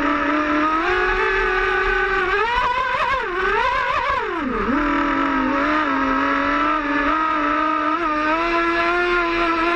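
Twin Lehner brushless electric motors of an HPR115 RC speedboat whining steadily under way. The pitch wavers and dips sharply about three to five seconds in, then settles back to a steady whine.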